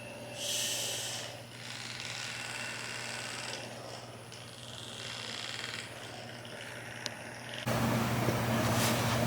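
A small electric massager motor humming steadily against the body, with rubbing noises. About eight seconds in it gets suddenly louder and rougher.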